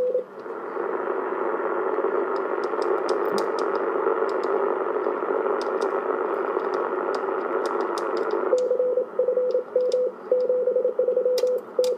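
President Lincoln II transceiver's speaker giving a steady receiver hiss, with a few sharp clicks from handling. About eight and a half seconds in, a Morse code signal comes through as a single tone keyed on and off over the hiss: a station calling CQ.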